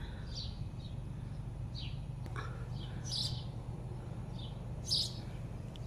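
Small birds chirping, with short high calls scattered every second or so, over a steady low background hum.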